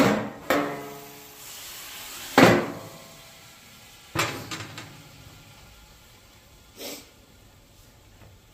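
Stainless steel griddle dome knocking and settling on the hot steel griddle top: a handful of clanks with a short metallic ring, the loudest right at the start and about two and a half seconds in, over a hiss of steam from water squirted under the dome that fades away.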